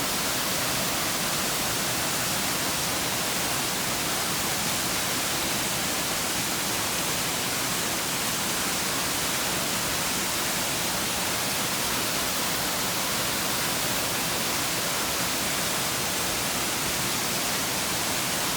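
Waterfall: a steady rush of falling water, an even hiss that does not change.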